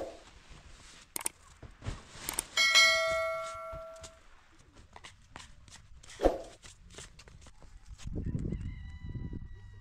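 Scattered knocks, and a piece of metal struck about two and a half seconds in, ringing loudly and dying away over about a second and a half; a fainter ringing tone sounds near the end.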